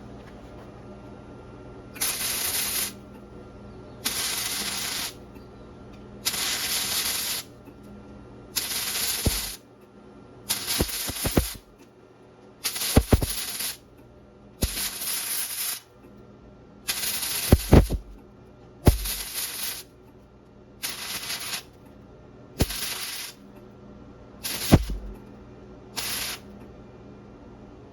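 Flux-core wire-feed welder arc crackling and hissing in about thirteen short bursts of roughly a second each, with a few sharp pops: stitch-welding thin 14 gauge stainless steel with E308LFC-O stainless flux-core wire on DC electrode negative at about 55 amps, half an inch of bead at a time.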